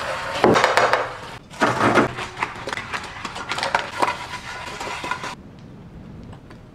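Crispy fried chicken crunching and crackling as it is handled, in two loud bursts in the first two seconds followed by scattered crackles and clicks, cutting off suddenly after about five seconds.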